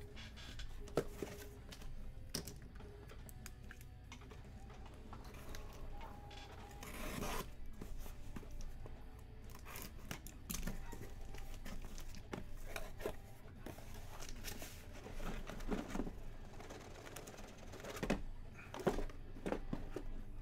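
Cardboard scraping, rustling and tearing as a Panini shipping case of hobby boxes is opened and the boxes are slid out and stacked, with scattered light knocks of boxes being set down.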